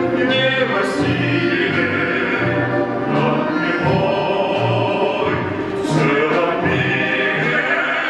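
Female soprano singing a song in operatic style, accompanied by an orchestra of Russian folk instruments, domras and balalaikas, with a steady bass line underneath.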